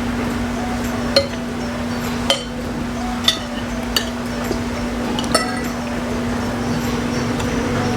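Eating utensils clinking against dishware: about five sharp clinks spread a second or so apart, over a steady low hum.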